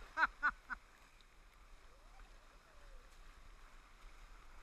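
A person laughs briefly right at the start, four quick falling 'ha' sounds. Then the steady rush of water runs through the tube-ride channel.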